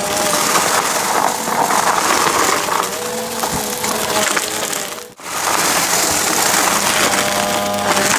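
Bissell CleanView upright vacuum running with a steady motor hum while it crunches and rattles up dry debris. The sound cuts out briefly about five seconds in, then carries on.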